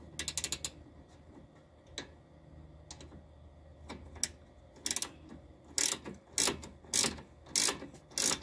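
Ratcheting wrench clicking as it turns the 18 mm nut on a sway bar end link's lower stud. A quick run of clicks comes first, then a couple of single clicks, and from about halfway on steady back-and-forth strokes, a burst of clicks about every two-thirds of a second.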